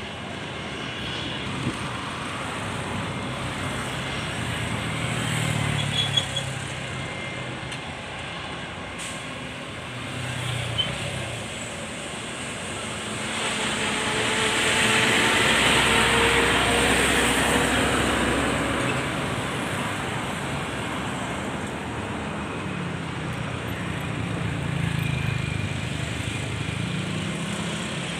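An airplane passing: a broad rushing noise swells to its loudest about halfway through, then slowly fades, with faint tones sliding downward as it goes by. Road traffic runs underneath throughout.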